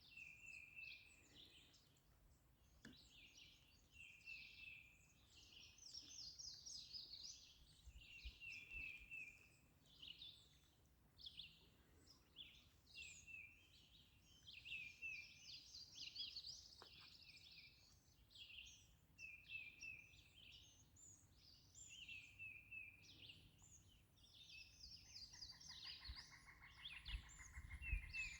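Several songbirds singing at once, with short overlapping phrases and chirps. About three seconds before the end, a steady, rapid trill joins in, and a few low bumps come near the end.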